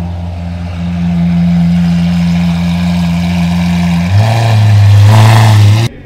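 Lamborghini Aventador's V12 engine running steadily as the car creeps along. About four seconds in it turns deeper and louder as the car pulls away, then cuts off abruptly near the end.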